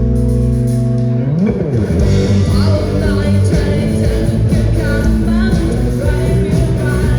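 Live rock band playing with guitar: a held chord rings for about the first second, then after a quick pitch sweep the band plays on with a singing voice over it.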